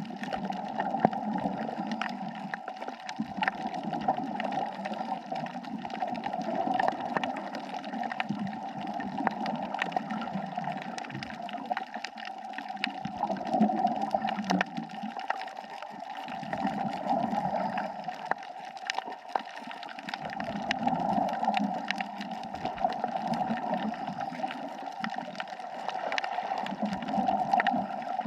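Underwater gurgling of a scuba diver's exhaled bubbles, swelling and fading every few seconds, over a steady hiss with many scattered sharp clicks.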